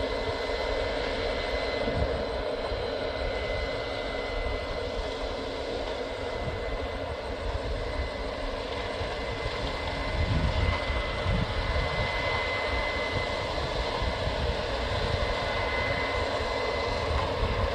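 Combine harvester running steadily while harvesting barley: a constant engine drone with a thin, high, steady whine over it.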